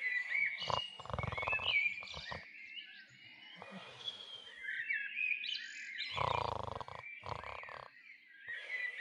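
Birds chirping, with many short gliding calls, broken a few times by short, rough low-pitched bursts.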